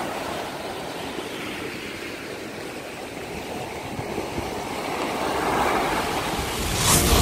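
Waves breaking and washing up a sandy beach in rough seas stirred up by an approaching typhoon: a steady rushing wash that swells about five seconds in, with a loud rush near the end.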